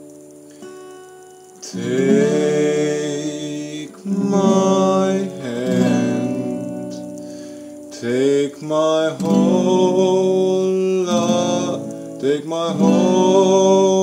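Acoustic guitar strummed with a man singing along. A chord rings out and fades at first, then the strumming and singing pick up again about two seconds in.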